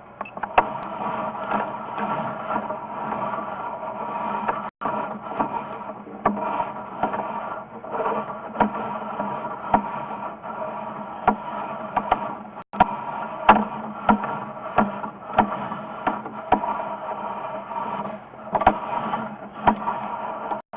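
Sewer inspection camera's push cable being pulled back through the sewer pipe: irregular clicks and scrapes over a steady hum.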